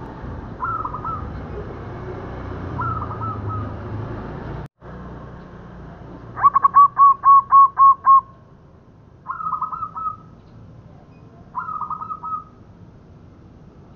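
Zebra dove (perkutut) cooing: short bubbling phrases of a few quick notes every two seconds or so, and about halfway through a louder run of seven clear, evenly spaced coos.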